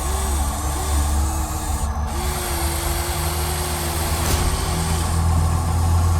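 Small electric motors and gearboxes of radio-controlled construction toys whining, their pitch repeatedly rising and falling as they speed up and slow down, over a steady low hum.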